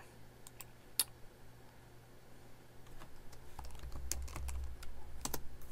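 Computer keyboard typing: a few separate clicks in the first second, then a quick run of keystrokes from about three and a half seconds in.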